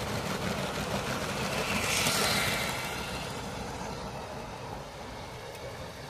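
Motorised Lego train running along plastic track close by, loudest about two seconds in and fading as it pulls away.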